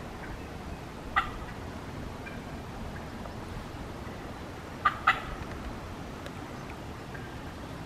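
Wild turkey hen calling: one short note about a second in, then two quick notes near five seconds. A steady rush of wind on the microphone runs underneath.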